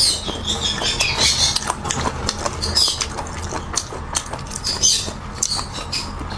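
Close-miked mouth sounds of someone eating spicy food: wet chewing, smacking and sucking, with many small clicks and several short hissy bursts.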